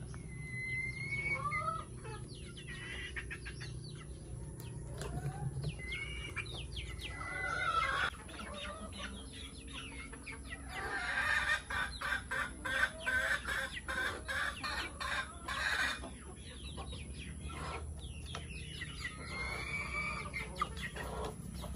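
A flock of chickens clucking and giving short calls while they feed. About halfway through comes a few seconds of rapid clicks and rustling.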